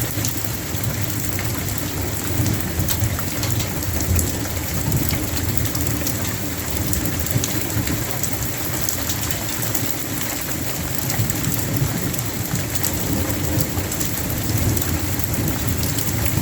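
Heavy rain falling steadily, a dense patter of drops with many sharp little ticks, over a continuous low rumble.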